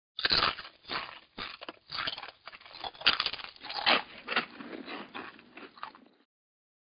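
Tortilla chips crunching: a quick, irregular run of loud crunches that stops about six seconds in.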